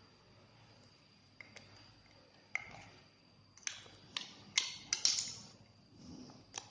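Crunchy, fluffy slime being squeezed and played with by hand, giving scattered sharp pops and crackles. There are a few at first, then a denser run of them past the middle.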